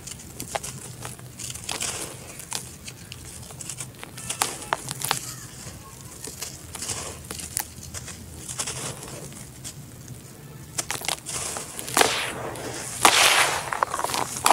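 Dry red dirt chunks crumbled and crushed by hand: gritty crackles and crunches as the lumps break, with louder rushes of powdery dirt falling and being stirred near the end.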